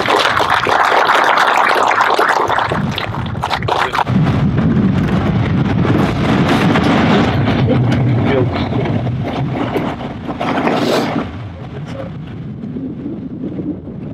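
Audience applauding for the first few seconds, then a heavy low rumble of wind on the microphone.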